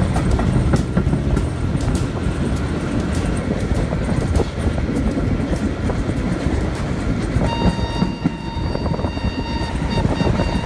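Passenger train running at speed, heard from an open coach window: a steady rumble with sharp clicks from the wheels over the track. For the last three seconds a steady high tone sounds over it, with one short break.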